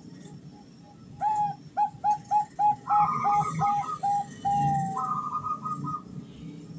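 Bangkok-type zebra dove (perkutut), a female calling to a male: a run of short, evenly repeated cooing notes, about two a second, starting about a second in, with quicker, higher notes in the middle and near the end. A steady low background rumble lies under it.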